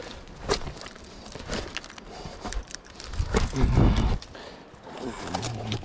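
A trail runner's steps and jangling gear on a steep mountain path: a run of light clicks and jingles, with a louder low rumble about three seconds in that lasts about a second.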